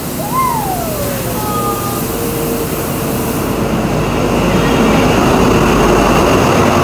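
XPT diesel power car running in along the platform and passing close by, its engine and wheel noise building to a peak in the second half. A short whine falls in pitch about half a second in.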